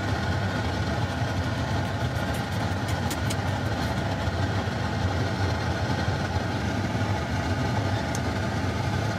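Steady low rumble of a car engine, with a few faint ticks.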